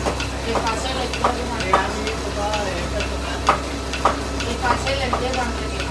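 Wooden cot leg spinning on a lathe while colour is pressed onto it by hand: crackling and scraping with scattered clicks and short squeaks over the lathe's steady low hum.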